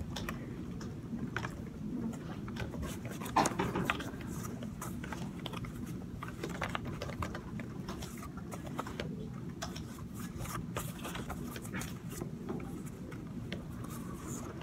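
Small handling noises, keyboard taps and then paper sheets being leafed through and rustled, as scattered light clicks over a steady low room hum. One louder brief sound comes about three and a half seconds in.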